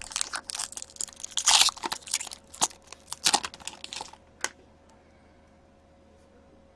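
Hockey card packs crinkling and tearing open as cards are handled, a quick run of rustles and snaps that stops about four and a half seconds in.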